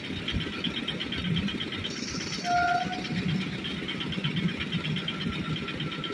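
Passenger train rumbling along the rails as its last coaches move away, with a brief high tone about two and a half seconds in.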